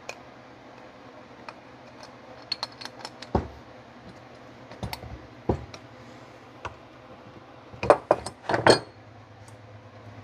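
Scattered metal clicks and knocks of a pipe wrench being adjusted and turned on the fuel elbow fitting of a Marvel Schebler carburetor while it is tightened. A louder cluster of knocks comes near the end as the wrench is put down on the wooden workbench.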